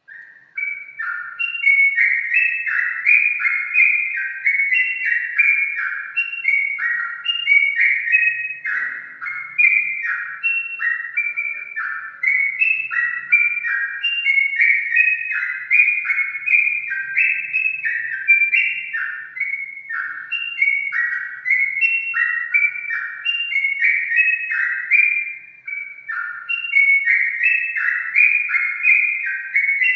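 Yellow-vented bulbul (trucukan) singing without pause: short bubbly phrases of chirping notes repeated one after another.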